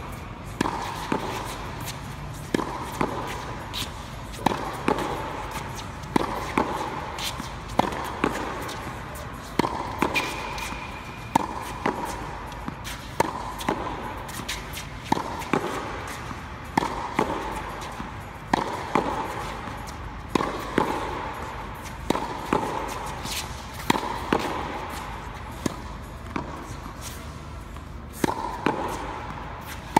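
Tennis balls struck by a racket and bouncing on an indoor hard court during a rally: a sharp pock every second or so, each echoing in the domed hall.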